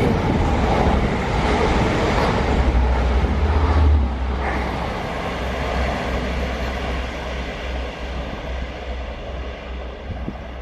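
A lit ground firework, such as a fountain, spraying with a dense, loud hiss and rumble that starts suddenly, holds for about four seconds, then slowly dies down.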